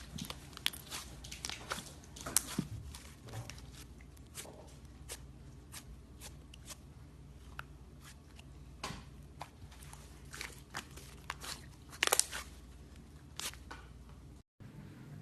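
Slime being pressed and worked, giving an irregular scatter of small crackles and clicks, with a louder cluster of crackles about twelve seconds in. The sound cuts out briefly near the end.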